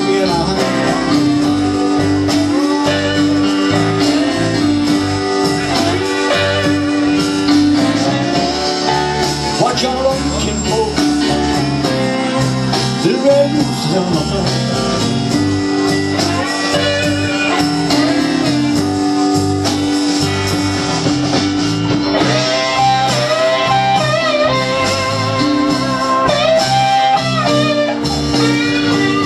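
Live blues band playing an instrumental passage: electric lead guitar with bent, wavering notes over bass, keyboards and drums.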